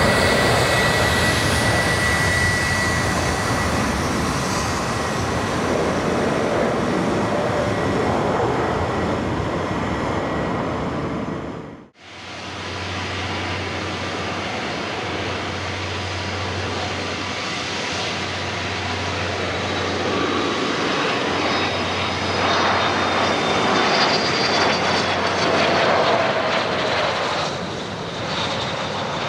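Jet engine noise from a Gulfstream G550 business jet, with a steady high whine in the first few seconds. About twelve seconds in the sound cuts off abruptly to silence for an instant, then resumes with a second business jet, a Gulfstream IV, whose engine noise carries a steady low hum underneath.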